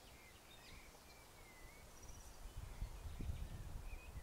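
Small birds chirping with short calls and gliding whistles in a quiet park. From about halfway through, irregular low muffled thumps on the phone's microphone become the loudest sound.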